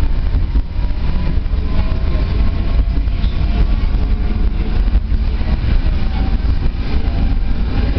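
Tram running along its track, heard from inside the car: a steady low rumble of wheels on rails, with a faint rising whine in the first couple of seconds.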